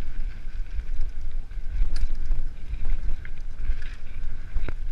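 Wind buffeting the microphone of a mountain bike's riding camera as a low rumble, mixed with tyres running over a dirt trail and a few sharp knocks from the bike over bumps.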